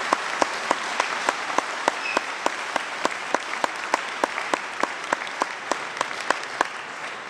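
Audience applauding over a steady, evenly paced clicking, about three clicks a second, from a jackpotted ATM whose screen reads 'You've Been Jackpotted'. The clicks fade near the end.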